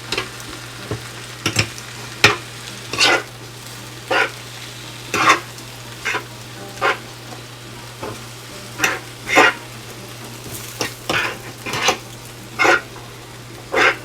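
A utensil stirring and scraping spinach around a hot frying pan in short strokes about once a second, over a steady sizzle.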